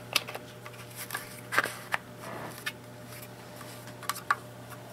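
Scattered plastic clicks and light knocks from an LED camping lantern being handled as its battery base is closed up, about seven short sharp clicks spread unevenly.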